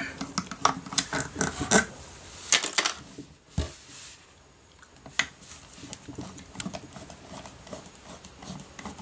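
Screwdriver clicking on small metal screws while the last screws of a metal avionics box's front compartment are backed out, then a dull knock a little over three seconds in as the compartment comes open. After that come a few light clicks of handling.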